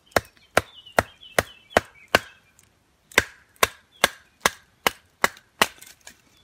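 Batoning: a wooden baton striking the spine of a Schrade SCHF36 fixed-blade knife, driving the blade down through a stick of rotten wood. There are about thirteen sharp knocks, some two and a half a second, with a short pause about halfway.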